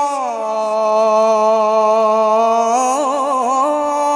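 A male Quran reciter holds one long drawn-out vowel in a melodic tilawat. The pitch falls a little at the start, wavers in a quick ornament around three seconds in, then settles slightly higher.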